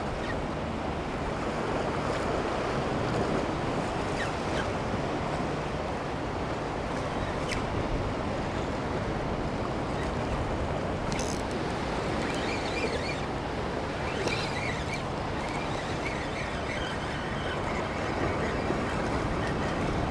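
Small waves washing steadily against jetty rocks, with a baitcasting reel being cranked to bring in a hooked fish.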